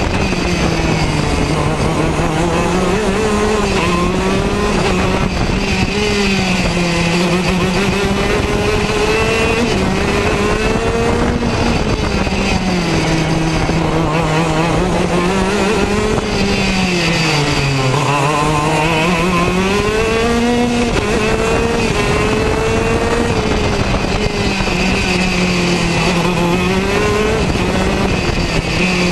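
Racing kart's two-stroke engine heard on board at high revs, its pitch climbing on the straights and dropping each time it slows for a corner, with the deepest drop a little past the middle.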